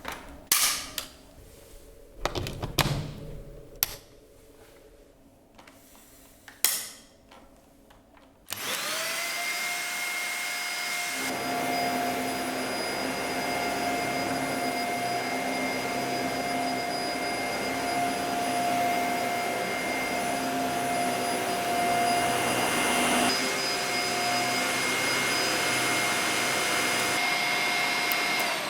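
A few sharp clicks and knocks, then the Dyson Small Ball upright vacuum cleaner switches on about eight seconds in. Its motor whine rises quickly and holds a steady pitch, running until it is switched off and winds down at the very end.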